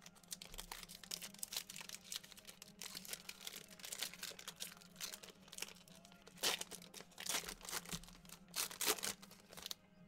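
Foil trading-card pack being torn open and crinkled by hand as the cards are pulled out: a run of crackling rustles, loudest in bursts from about six and a half to nine seconds in, over a faint steady hum.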